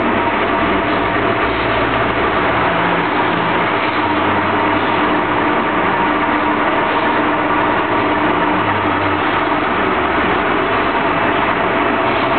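Wheel-repair machine running steadily, spinning an aluminium motorcycle wheel on its mount: a loud, even mechanical whir.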